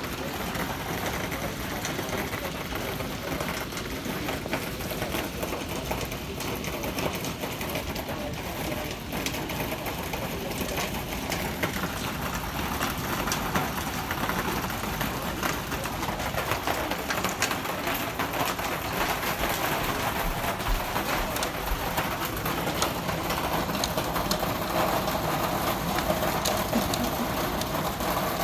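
Hail mixed with heavy rain pelting the ground and nearby surfaces: a dense, steady patter of small ticks that grows somewhat louder about halfway through.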